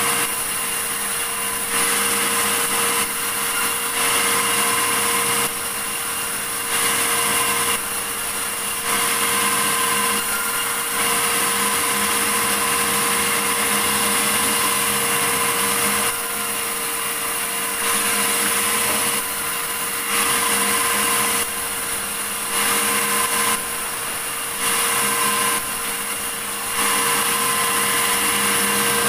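Sawmill saw running while cutting a large log of medang wood, a steady machine hum with hiss, its loudness switching up and down every second or two.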